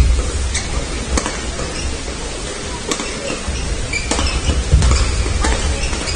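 Badminton rackets striking a shuttlecock in a fast doubles rally: a string of sharp hits, some under a second apart, over the low thud of players' footwork on the court floor.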